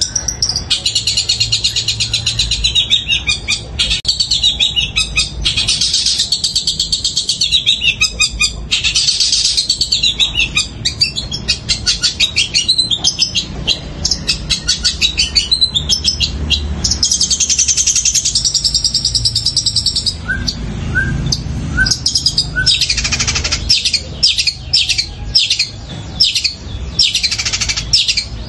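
Caged long-tailed shrike singing loudly and almost without pause: a fast, chattering run of high notes packed with mimicry of the squabbling chatter of fighting tree sparrows.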